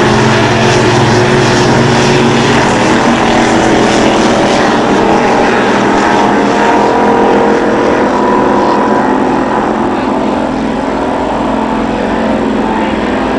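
Blown (supercharged) K-boat race boat engines running flat out, a loud, steady engine note that eases slightly in the last few seconds.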